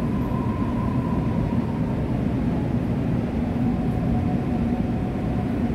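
Interior running noise of a Korail Suin–Bundang Line electric commuter train car under way: a steady, even rumble of the wheels and running gear. A faint thin whine rides over it, fading out partway through, and a lower whine comes in a little later.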